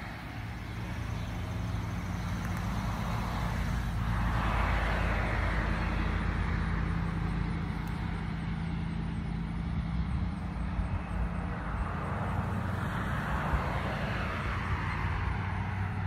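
Road vehicle noise: a steady low hum under a rushing sound that swells and fades, once about four seconds in and again near the end, as of vehicles going past.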